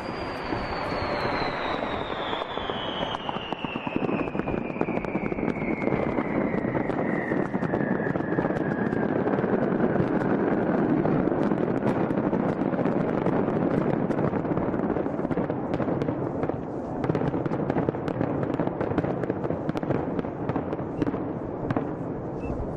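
Large fireworks display: a dense, continuous crackle of many pops and bangs, getting louder after about four seconds. Through the first several seconds a single high tone slides slowly down in pitch above the crackle.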